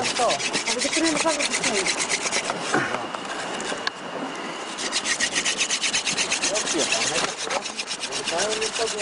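Wood rubbing hard against wood in quick rasping strokes, from a stick being worked against a board to start a friction fire. There is a short pause a little past three seconds in.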